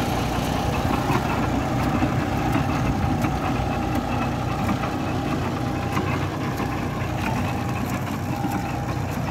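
John Deere 5050E tractor's three-cylinder diesel engine running steadily under load while pulling a cassava planter, with scattered light clicks and rattles from the planter working through the soil.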